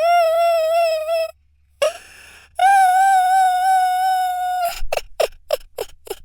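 A man crying in a high, wavering wail, held twice for a second or two, then breaking into a quick run of short sobs near the end.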